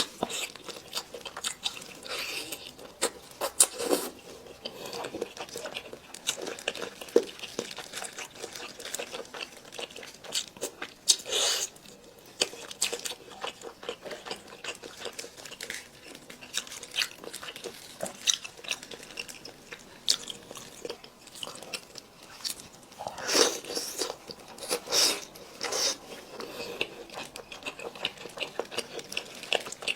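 Close-miked eating sounds of someone biting and chewing braised chicken: a steady run of irregular wet clicks and smacks, with a few louder flurries of chewing.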